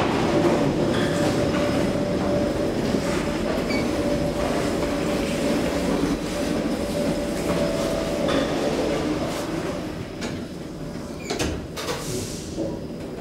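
Metro train running in the underground station: a steady rumble with a held tone, easing off about ten seconds in. A few sharp knocks near the end.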